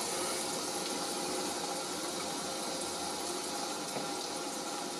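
Rain sound effect: a steady, even hiss of falling rain, starting to fade near the end.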